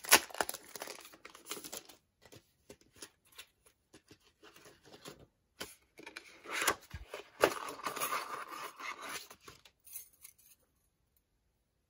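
Clear plastic packaging crinkling and rustling as a die set is opened and its translucent inner sleeve pulled out. The handling comes in two spells, near the start and more strongly from about six to ten seconds in, then stops.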